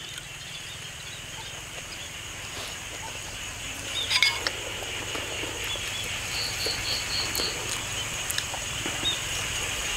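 Steady evening insect chorus of crickets, a continuous high shrill. About four seconds in there are a few sharp clicks of a fork against a plate, and a little later five quick high chirps.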